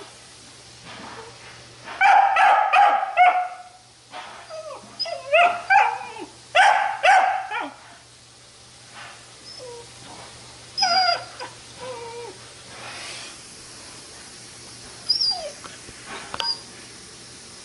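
Dog in a pet crate yelping and whining in repeated bursts of high, wavering cries, loudest from about two to eight seconds in, with shorter yelps later on.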